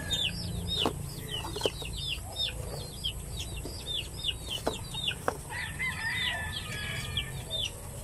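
Backyard laying flock calling: constant rapid high chirps with chicken clucks among them. A few sharp clicks of eggs being handled and set into cardboard egg trays.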